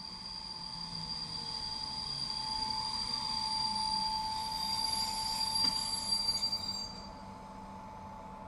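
Electric multiple unit train braking to a stop, its brakes or wheels squealing in a steady high tone that grows louder and then cuts off about seven seconds in as the train halts.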